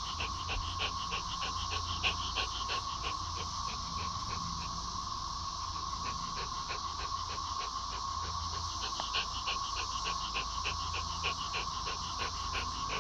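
Steady drone of a chorus of 13-year periodical cicadas, with a Schipperke dog panting quickly over it, about three to four breaths a second.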